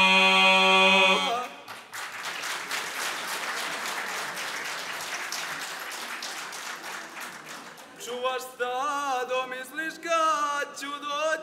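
An a cappella male folk group's last held chord cuts off about a second in, then an audience applauds for several seconds. Near the end a lone man's voice starts up with a wavering pitch.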